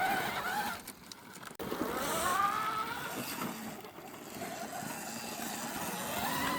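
Motorcycle engine revving on a dirt track, its pitch rising as it accelerates twice, after a brief lull about a second in.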